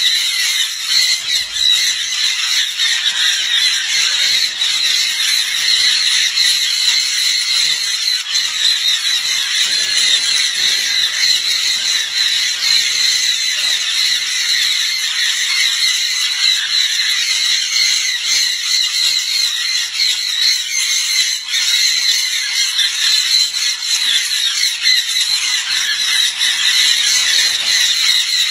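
A flock of sun and jenday conures screeching without a break, many high-pitched calls overlapping.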